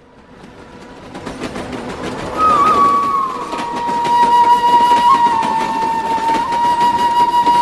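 Passing train running and clattering, growing louder over the first two seconds, with a long high held tone over it from about two and a half seconds in that slides slightly down in pitch and then holds.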